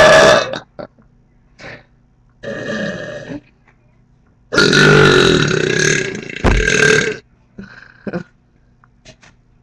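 Deliberate burps into the microphone: a loud one trailing off just after the start, a shorter, quieter one about two and a half seconds in, then a long, loud burp of over two seconds from about four and a half seconds in.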